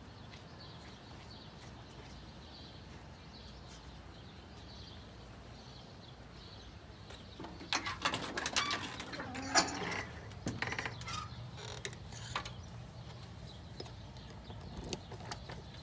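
Keys jangling and clicking in a door lock, starting about halfway through, followed by a few single sharp clicks of the key and latch.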